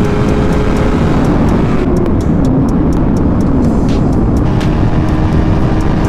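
Loud, steady motor vehicle noise with a dense low rumble and faint steady engine tones.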